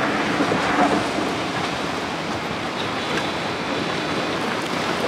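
Steady wash of sea water lapping against jetty rocks and pier pilings.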